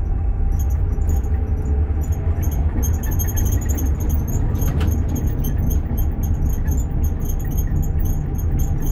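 Cab of a Tatra T6 tram on the move: a loud steady running rumble with constant rattling, clinking and squeaking from the loose cab doors.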